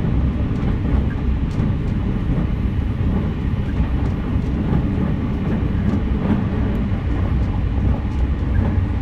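JR West 683-series electric train, a steady low rumble with a few faint clicks.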